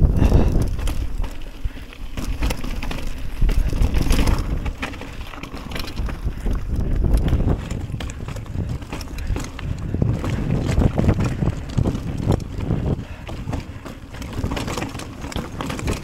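Mountain bike rattling along a trail, with wind buffeting the microphone: a steady low rumble full of small clicks and knocks that swells and fades.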